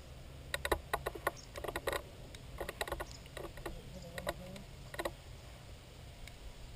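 A lighter being clicked over and over in quick, irregular runs of sharp clicks, trying to ignite escaping butane gas.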